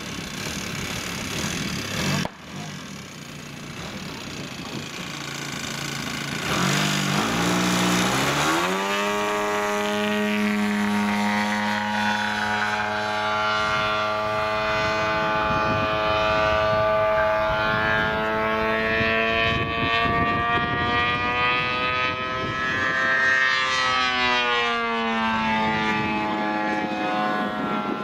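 Engine of a large radio-controlled composite Pitts biplane model opening up in steps for the takeoff run about seven seconds in, then running steadily at high power in flight. Its pitch drops and climbs back again about three quarters of the way through.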